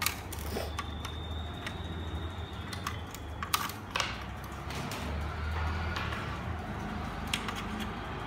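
A handful of sharp clicks and taps from a screwdriver and small parts being handled on a wooden workbench, over a steady low hum.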